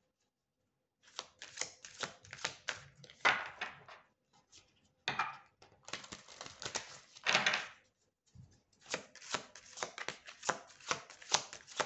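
Hand shuffling a deck of oracle cards: quick runs of clicking, flicking cards, with longer riffling rustles about three and seven seconds in, starting after a second of silence.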